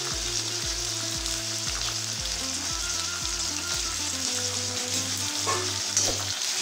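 Tomato pieces frying in hot oil in a steel kadai: a steady sizzle, with a few brief louder crackles near the end. Background music with a steady bass beat plays under it.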